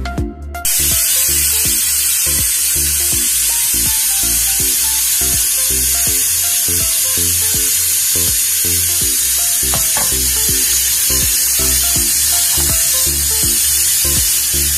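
Cooking oil sizzling steadily as it heats in a stainless steel pot, starting about half a second in, with background music playing underneath.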